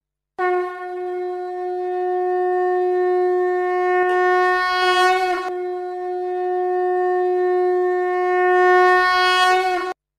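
Conch shell (shankh) blown in two long, steady blasts at one held pitch, with a brief break and a small wobble in pitch about five seconds in.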